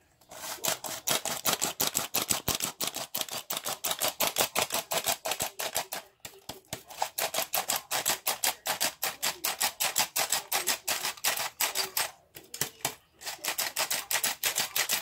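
Squeeze-handle flour sifter clicking rapidly, about six clicks a second, as its trigger is worked to sweep the agitator over the mesh and sift flour. The clicking pauses briefly twice, about six and twelve seconds in.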